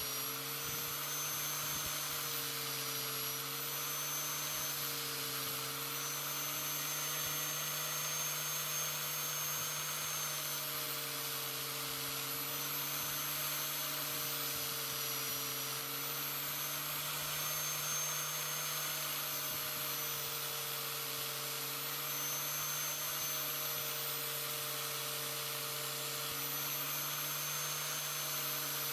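Electric angle grinder, clamped in a vise, running continuously while a forged knife blade's bevels are ground on it. A steady motor whine that dips slightly in pitch now and then.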